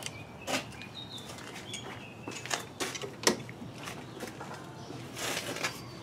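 Birds chirping faintly in short high notes, with several sharp clicks in between and a brief rustle near the end.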